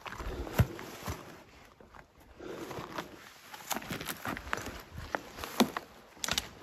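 Footsteps climbing through dry tussock grass and over loose stones: irregular crunches and knocks with grass rustling, two louder knocks about half a second in and near the end.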